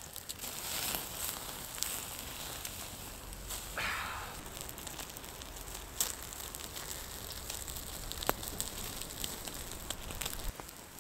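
Thick sirloin steaks sizzling on a wire grill over wood-fire coals, with the fire crackling. There are a few sharp pops, about six and eight seconds in, and a brief louder hiss about four seconds in.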